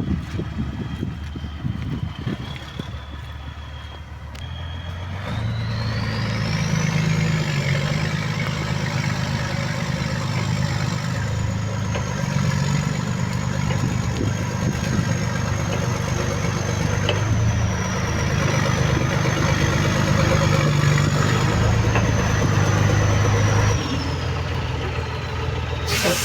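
Heavy diesel engine of a forestry machine running with a high whine over it. About five seconds in it revs up and holds high under work for most of the time, then drops back to idle near the end, followed by a short hiss of air.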